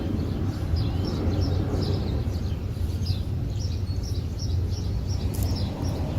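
Small birds chirping, quick high chirps several a second, over a steady low rumble.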